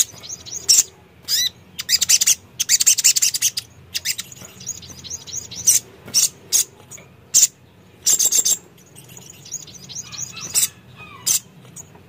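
Sogon sunbird singing: quick runs of high, thin chirps and twittering trills. The runs come in bursts, a few of them lasting about a second, with short pauses between.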